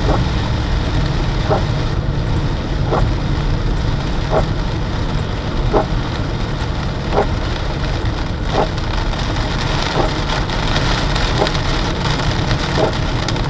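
Inside a car driving in heavy rain: a steady rumble of road noise and rain. A short sweep sound repeats evenly about every second and a half, the rhythm of windscreen wipers on a fast setting.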